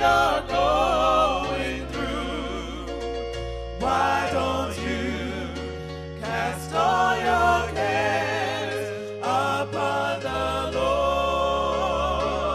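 Gospel song: singing with wide vibrato over sustained bass notes and chords.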